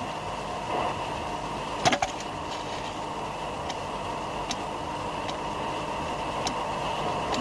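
Steady machinery hum with a hiss inside a submarine, with one sharp metallic knock about two seconds in and a few faint clicks.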